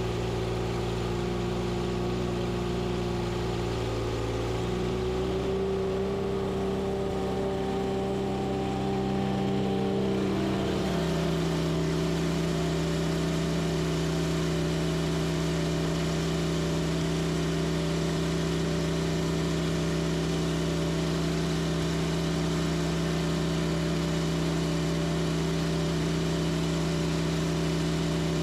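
An engine running steadily, its speed changing about 5 seconds in and again about 11 seconds in, then holding even.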